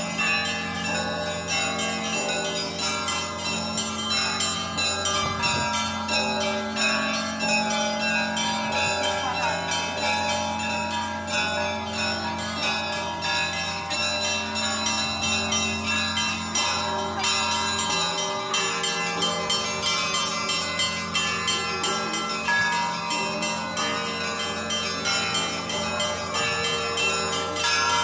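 Several bells ringing together in a continuous peal: small bells struck rapidly and repeatedly over the long, lingering hum of a deep bell.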